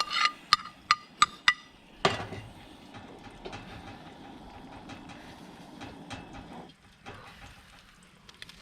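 A utensil clacking and scraping against a frying pan while stirring scrambled eggs, about three strokes a second, stopping about a second and a half in. After a sharper knock, a steady hiss runs for a few seconds and then cuts off suddenly.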